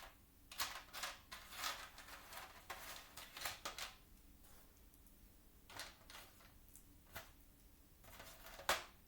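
Plastic Lego pieces being handled and pressed together: a run of quick clicks and rattles over the first four seconds, then a few scattered clicks, the sharpest one near the end.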